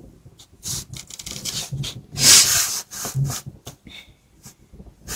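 A marker pen and paper making short scratching and rubbing strokes on a sheet of paper, the longest and loudest about two seconds in.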